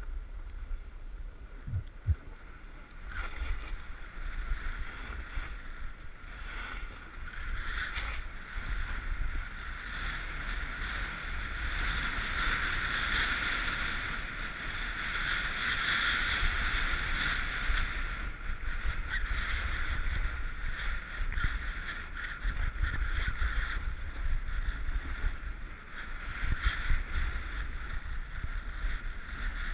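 Snowboard sliding and carving over packed snow: a continuous scraping hiss that rises and falls with the turns, loudest about midway, over wind rumble on the GoPro's microphone.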